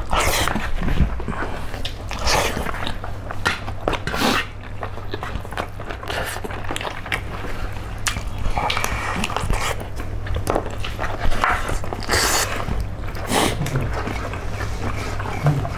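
Close chewing and crunching of chicken feet eaten by hand, with wet smacking, in irregular sharp bursts over a steady low hum.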